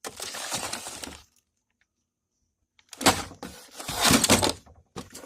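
Metal clattering and scraping as an old steel toolbox is handled and tools are moved about inside it. It comes in two stretches with a near-silent gap between, the second louder and full of sharp knocks.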